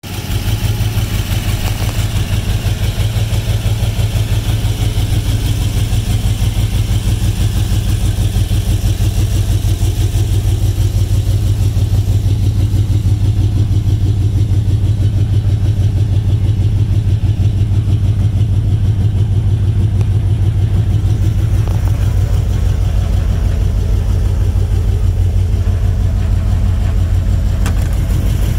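1949 Studebaker pickup rat rod's engine idling steadily, a deep, even pulsing exhaust note.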